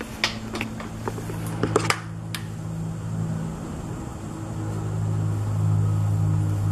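Sharp metallic clicks of a torque wrench tightening a motorcycle's oil drain plug, over the first two and a half seconds. Under them runs a steady low machine hum that grows louder from about halfway through.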